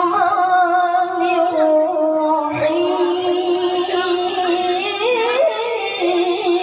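A boy's voice reciting the Quran in the melodic tilawah style, amplified through a handheld microphone. He holds long drawn-out notes with ornamented turns and climbs to a higher, decorated phrase about five seconds in.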